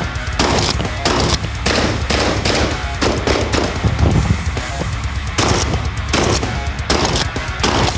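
Rapid gunshots from a shotgun and a pistol, two or three sharp cracks a second with a short break in the middle, over background music with a steady beat.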